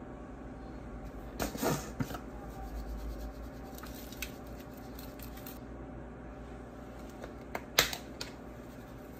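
Plastic seasoning containers being handled over a foil pan: a few short clicks and rustles, the loudest near the end as the flip-top cap of a granulated garlic shaker is snapped open, over a low steady hum.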